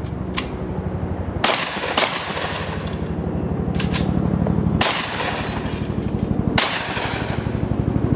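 Shotgun fired in a timed stage: four loud blasts, two in quick succession about a second and a half in, then one near five seconds and one near the end, with fainter shots between. Under them runs a steady low thumping like a helicopter's rotor, growing louder.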